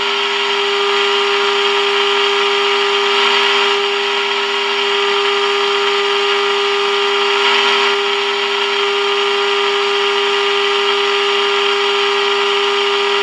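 1947 Admiral 7T10 AA5 tube radio's speaker giving a steady, unwavering mid-pitched tone over a bed of static hiss. This is the signal generator's modulation tone received at 1400 kilocycles while the antenna trimmer is peaked for maximum during alignment.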